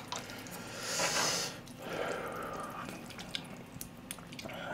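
Chopsticks stirring and lifting wet, sauce-coated noodles, with small clicks and a short breathy hiss about a second in.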